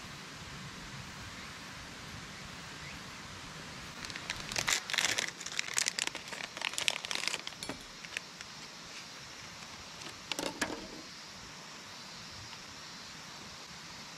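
Plastic snack wrapper crinkling as it is handled, in a run of crackles for about three seconds and again briefly a few seconds later.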